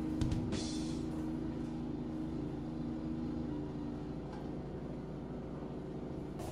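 Snow blower running steadily as it throws snow, an even engine hum heard through window glass, with a short rushing hiss about half a second in.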